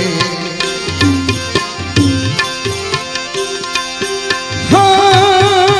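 Instrumental interlude of a Gujarati devotional bhajan: hand drums keep a steady beat under a plucked melody of short notes. About five seconds in, a loud sustained melody line with a wavering vibrato enters.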